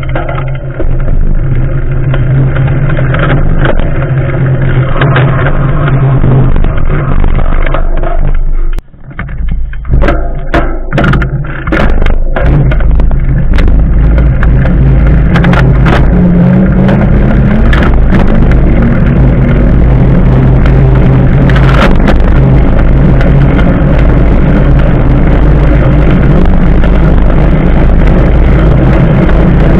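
Steady rushing noise of a bicycle in motion: wind on the camera's microphone and tyre hum on asphalt. The noise drops out briefly about nine seconds in, then carries on.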